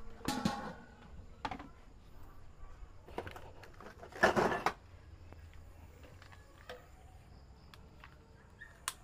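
A metal pot lid is set onto a large metal wok with a light clank that rings briefly. Faint knocks and handling noises follow, with one louder, short noise about four seconds in.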